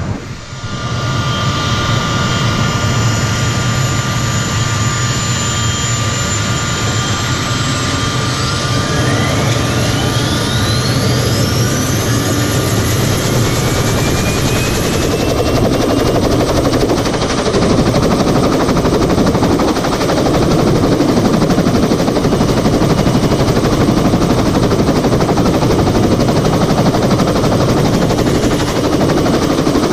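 CH-46E tandem-rotor helicopter spinning up on the ground: its turboshaft engines whine, several tones rising in pitch as they accelerate, while the rotor noise grows louder and heavier from about halfway through.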